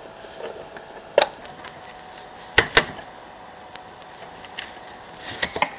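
Sharp clicks and taps of a lock pick set and its case being handled, with metal picks knocking against the case. There is one click about a second in, two close together midway, and a quick run of clicks near the end.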